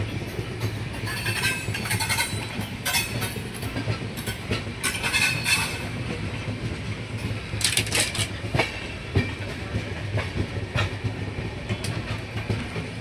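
Farakka Express passenger train rolling past on the next track: a steady low rumble with the wheels clacking over rail joints, and a few brief high squeaks.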